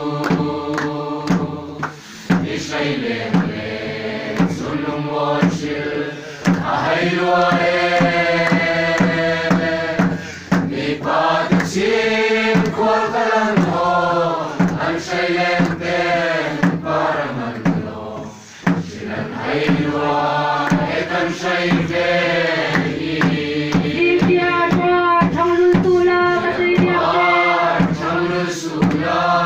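A large mixed group singing a hymn together in long, held notes, kept in time by regular beats on a khuang, the Mizo barrel drum.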